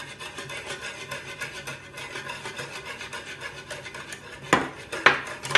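Wire whisk beating milk and cornstarch in a saucepan, its wires scraping the pan in fast, even strokes, with two louder knocks near the end.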